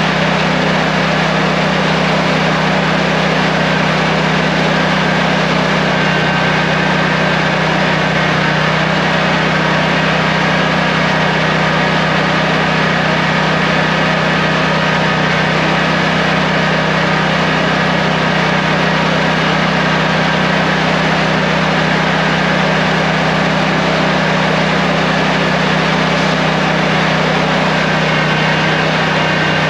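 Toro GrandStand stand-on mower engine running steadily at constant speed, heard close up from the mower itself.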